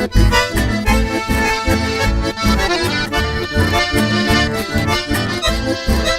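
Chamamé played on accordion, the accordion carrying the melody over a steady, pulsing bass rhythm, with no singing.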